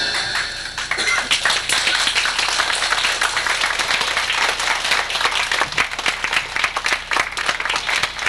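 A congregation applauding, many hands clapping steadily, as the choir's last sung chord dies away in the first second.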